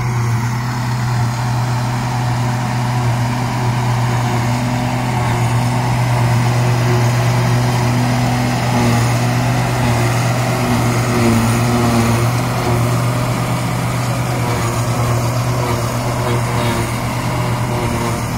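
Tractor and engine-driven trailed forage harvester running steadily together, a constant deep engine drone, as the forager picks up mown grass and blows it into the towed silage trailer.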